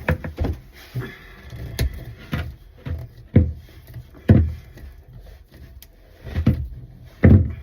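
Irregular hollow knocks and thumps, about one a second, from hands working the plastic drain trap under a kitchen sink while its lower slip nut is being loosened.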